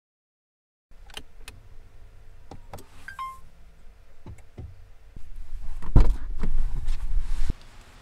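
Inside a car: a few sharp clicks of the controls and a short electronic beep over a faint steady hum, then a car door opening with a heavy thump and a low rumble that stops abruptly shortly before the end.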